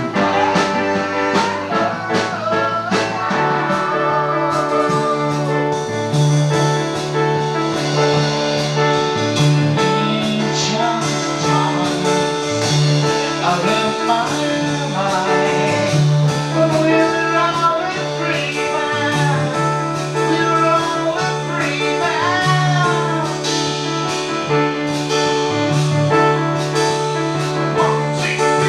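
Band music in a blues-rock vein: a lead line with sliding, bent notes over a steady bass line and drums.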